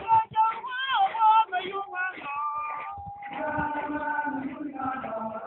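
A group of voices singing, with notes held for a second or more, strongest in the second half.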